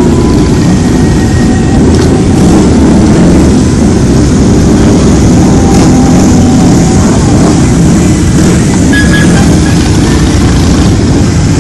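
A procession of motorcycles riding slowly past one after another, among them sport bikes, V-twin cruisers and a three-wheeled trike, their engines running together in a loud, steady mass of engine noise.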